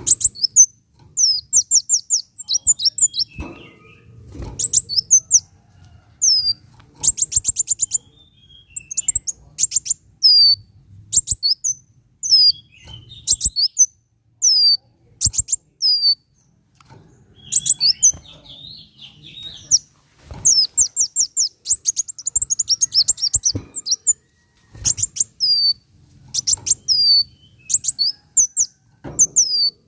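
Kolibri wulung sunbird singing: bursts of high, thin, downward-sliding chirps and quick rattling trills, phrase after phrase with short pauses between.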